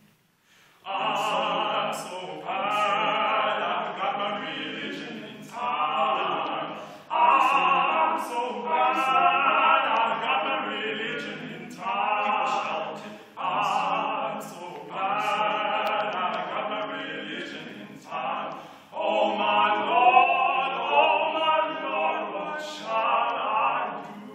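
Male vocal quartet singing unaccompanied from printed music, in phrases a second or two long with short breaks between them, beginning about a second in after a brief pause.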